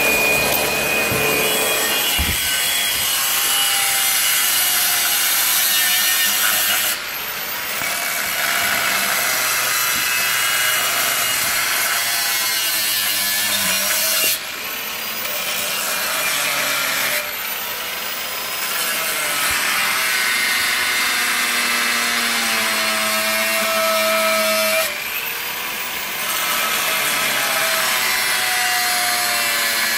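Corded angle grinder with a cutting disc cutting into the steel casing of a fridge compressor, running continuously under load. The sound dips and recovers about four times as the cut eases and bites again.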